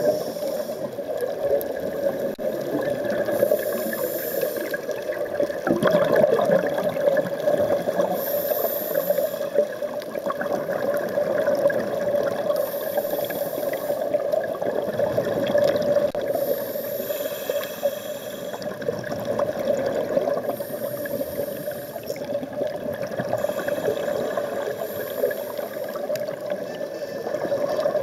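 Scuba diver's regulator breathing heard underwater: a rush of exhaled bubbles about every four seconds over a steady watery noise.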